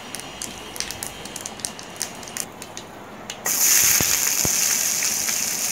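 Mustard seeds crackling in hot oil, with scattered sharp pops. About three and a half seconds in, sliced onions are tipped into the pan and the oil breaks into a loud, steady sizzle.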